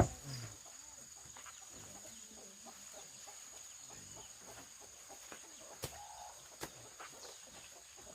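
Chickens clucking softly, with a sharp knock at the start and two more near the end, over a steady high-pitched insect-like whine.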